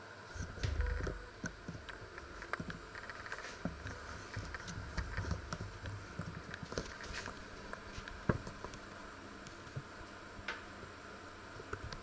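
Scattered light clicks and knocks of kitchen handling around an open oven holding an enamelled cast-iron pot on its rack, with one sharper click about eight seconds in. Low rumbles of movement come about a second in and again around five seconds.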